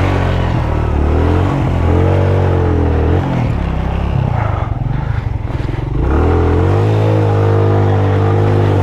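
Suzuki GS150SE's single-cylinder four-stroke engine pulling slowly up a rocky track, its revs rising and falling with the throttle. About halfway through it drops to a ragged, uneven low-rev chug, then settles into steady running for the last few seconds.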